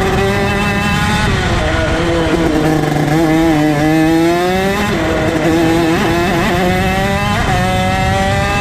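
Rok Shifter kart's 125cc two-stroke engine at race speed. Its pitch climbs steadily under acceleration, drops sharply near five seconds in, and then climbs again.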